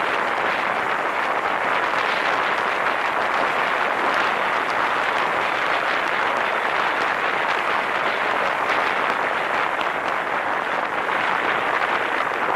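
Steady rush of wind and tyre noise heard from a camera mounted on the roof of a car driving at speed.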